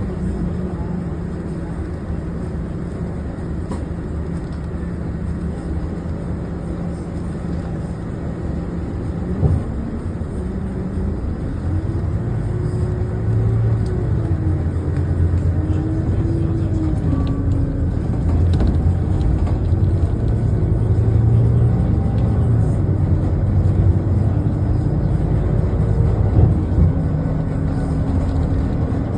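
City bus heard from inside the cabin: steady engine and road hum with no talking. One thump about nine seconds in; a few seconds later the hum grows louder and a motor whine rises and falls in pitch as the bus gets moving.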